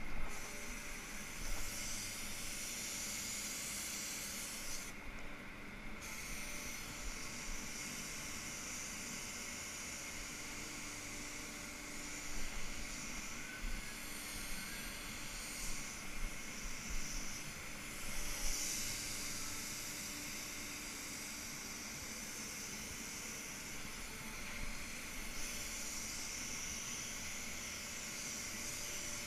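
Compressed-air paint spray gun hissing as it sprays in long passes, stopping for about a second a few seconds in, over a steady low hum.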